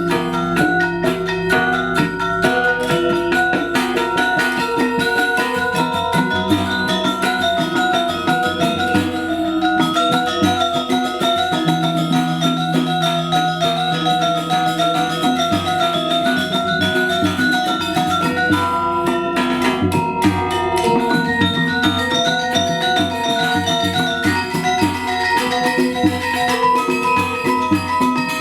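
Balinese gamelan music accompanying a Legong dance: bronze metallophones playing fast, busy ringing figures without a break.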